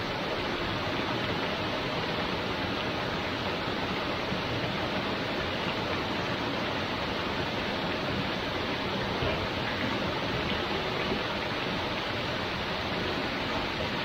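Waterfall pouring steadily into a pool: a constant, even rush of water.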